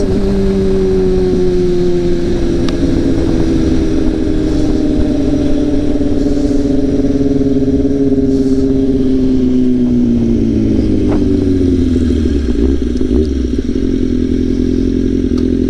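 Kawasaki ZX-6R's inline-four engine running under way, its pitch sinking slowly as the revs drop, then settling lower about ten seconds in. A low rush of wind noise runs underneath.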